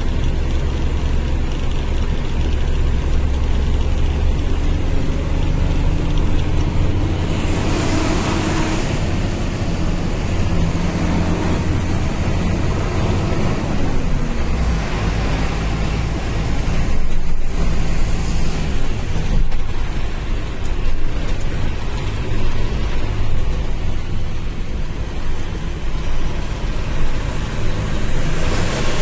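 Truck engine running steadily under load, heard inside the cab, with tyre noise on a wet road. A louder rushing sound swells and fades about eight seconds in.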